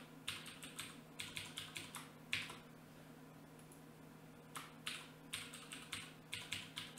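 Computer keyboard typing in two quick runs of about ten keystrokes each, with a pause of about two seconds between them: a password typed, then typed again to confirm it.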